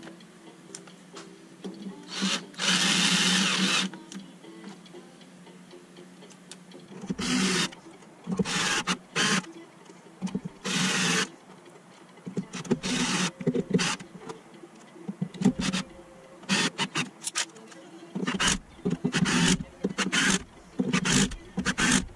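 Small electric screwdriver driving socket cap screws into the end cap of an aluminium spindle housing, running in short bursts of about a second with pauses between them, coming more often in the second half.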